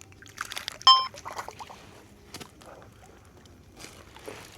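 Light splashing and dripping water with scattered small clicks. About a second in there is one short, sharp ringing sound, the loudest moment.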